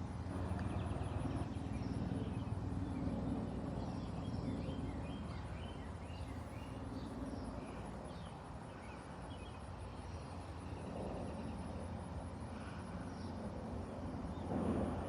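Outdoor ambience: a steady low hum, with short high chirps scattered through it.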